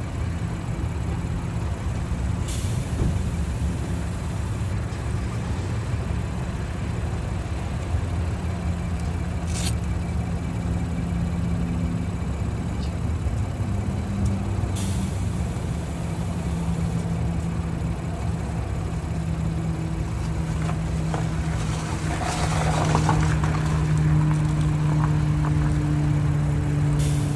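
A motor running with a steady low hum, its pitch settling a little lower about two-thirds of the way through, with a few short hisses.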